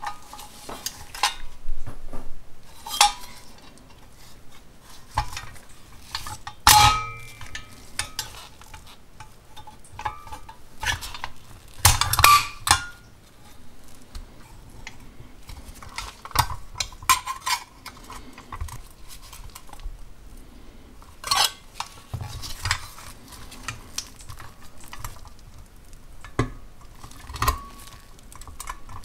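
1930s Wyandotte pressed-steel toy dump truck being handled: scattered, irregular clinks, knocks and rattles of thin sheet metal, some with a brief metallic ring. The loudest knocks come about seven and twelve seconds in, and near the end pliers work at the dump bed.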